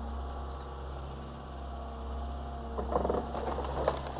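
Excavator's diesel engine running steadily during the demolition of a building; about three seconds in, irregular cracking and knocking of breaking building material begins and grows louder.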